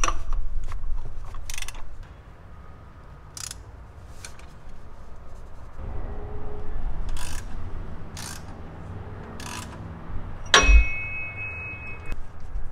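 Ratchet wrench on an extension with a cap wrench, loosening the oil filter housing cap to drain the filter: scattered ratchet clicks and light metal knocks, then one louder metal clank about ten and a half seconds in, followed by a brief high ring.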